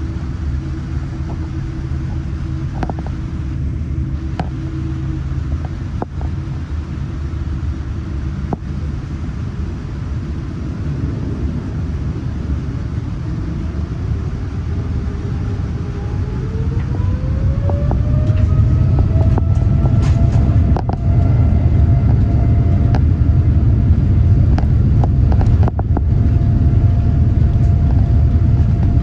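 Boeing 787-9 jet engines spooling up: a whine rises in pitch over a few seconds about halfway through and then holds steady above a deep rumble that grows louder. Scattered knocks and rattles sound throughout. This is thrust being set for the takeoff roll.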